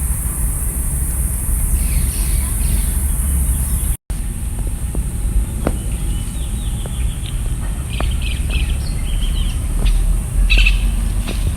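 Birds chirping in short calls, mostly in the latter part, over a steady low rumble and a steady high hiss; the sound drops out briefly about four seconds in.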